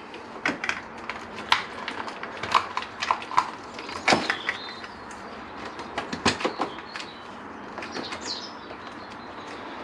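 Old heated-grip wiring loom and controller being pulled out from around a motorcycle's headstock: irregular clicks, knocks and rustles as the cables and plastic connectors catch and scrape against the bars and fairing.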